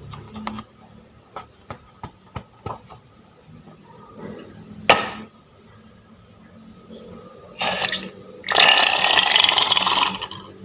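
Slime being squeezed and worked by hand: scattered small clicks and pops, a sharp snap about halfway through, then nearly two seconds of loud wet squelching near the end.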